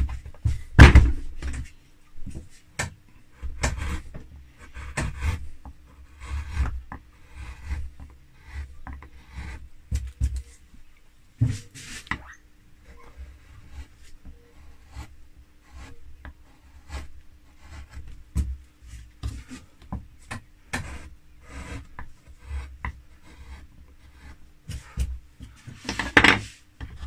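Hand carving chisel cutting into linden wood: a long run of short, irregular slicing and scraping strokes, with a louder knock about a second in.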